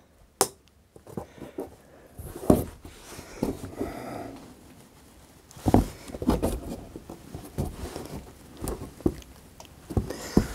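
A damp hardboard (Masonite) backdrop sheet being bent slowly by hand around a curve: scattered knocks, rubbing and small creaks from the flexing board, with sharper knocks about two and a half and six seconds in.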